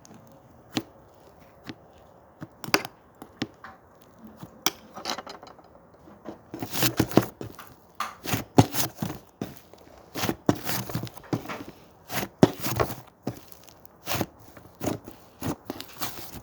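Blue slime being squished and poked by hand, making irregular crackling clicks and pops that come sparsely at first and then in quick clusters from about six seconds in.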